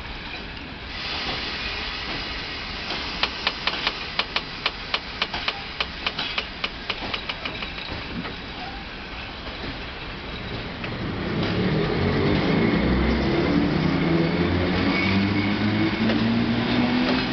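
Passenger coaches rolling past with a run of quick, regular wheel clicks over rail joints, about three a second. About eleven seconds in, a PKP EP07 electric locomotive moves off and comes closer, its traction motors whining with a slowly rising pitch as it accelerates, growing louder.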